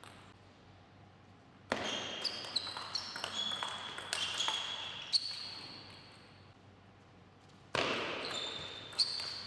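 Table tennis ball being struck by rackets and bouncing on the table in quick rallies: rapid sharp clicks, many followed by a brief high ringing ping. The clicking begins about two seconds in and starts again near the end.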